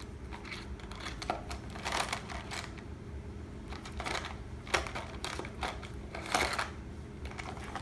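Small hand tools being rummaged and handled on a workbench: a scattering of short clicks and clatters, about half a dozen, over a steady low electrical hum.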